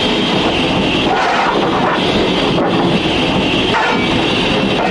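Loud, steady background music.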